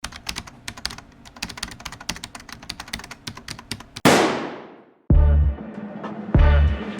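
Rapid, irregular clicking for about four seconds, then a sharp crash that fades with a falling swoosh; about a second later background music with a heavy bass beat starts.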